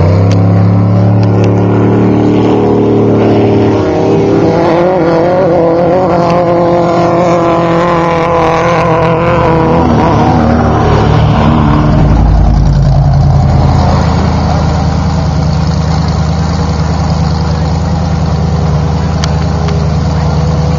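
Off-road race vehicle's engine revving up at the start, climbing in pitch over the next several seconds, then dropping back about halfway through to a steady, lower run.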